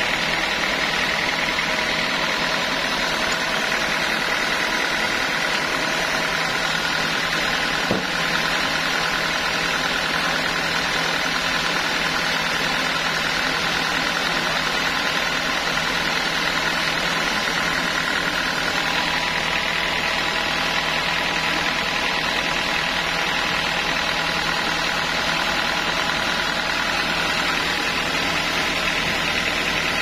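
Sawmill machinery running steadily, a constant machine drone with several steady tones over it. One short click about eight seconds in.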